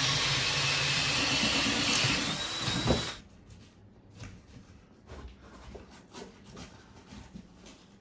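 Electric drill running under load, boring through wooden wall studs, with a steady motor hum; it stops about three seconds in. Light knocks and handling sounds follow.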